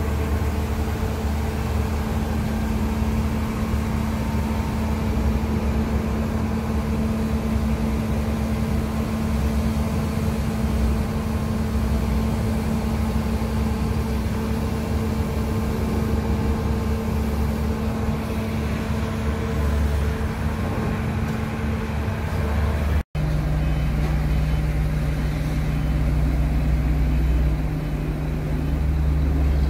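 Hyundai R320LC-9 excavator's Cummins QSC diesel engine running steadily while the boom and bucket move. About 23 seconds in there is a sudden break, and afterwards the engine's hum sits at a lower, steady pitch.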